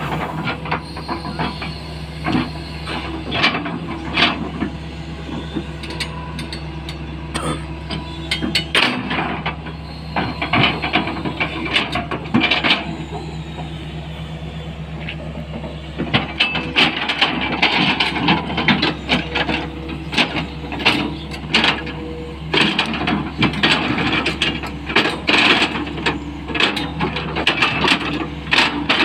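Tata Hitachi 220 LC excavator's diesel engine running steadily as the bucket digs into and scrapes the sandy pit sides, with frequent knocks and scrapes of soil and stones that grow busier about halfway through.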